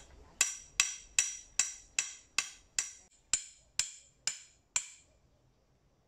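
A hammer striking the top of a metal stake about a dozen times at a steady two or three blows a second, driving it into the ground. Each blow rings briefly. The blows stop about five seconds in.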